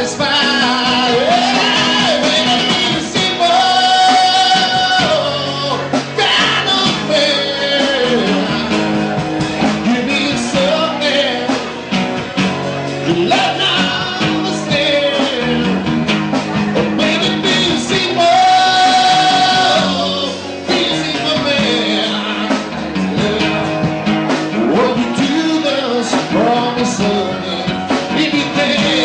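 Live rock band playing a song: a lead singer over guitar and drums.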